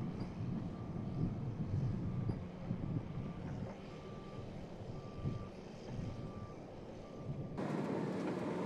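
Low rumbling vehicle engine noise with a reversing alarm beeping about once a second. Near the end the sound cuts abruptly to a broader rushing noise.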